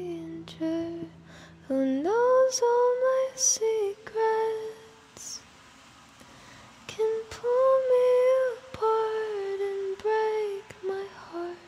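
A woman's voice singing slow, drawn-out notes with almost no accompaniment, sliding up into a long held note about two seconds in, with short pauses between phrases. A guitar chord rings out and fades at the start.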